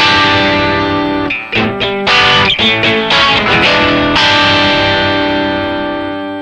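Fender Stratocaster electric guitar played through a Marshall MG100FX amplifier head: a held chord rings, a few short choppy strums follow about a second and a half in, then another chord rings out and slowly fades.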